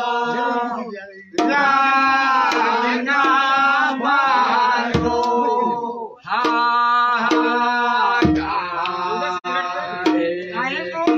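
Men singing a Kumaoni Holi song, the singing breaking off briefly about a second in and again about six seconds in, with sharp percussive strikes along with it.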